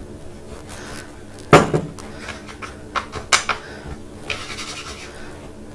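Kitchen utensils handled on a wooden board and counter: a loud knock about a second and a half in, a few lighter clicks and clatters, then a brief scraping rub.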